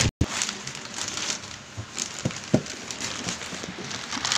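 Silver foil packaging bag crinkling and rustling as hands pull it back, with two sharp knocks a little after two seconds in.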